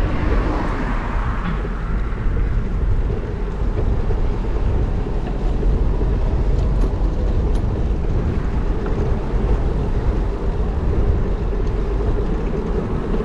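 Steady wind rush and low buffeting on a bicycle-mounted action camera's microphone while riding.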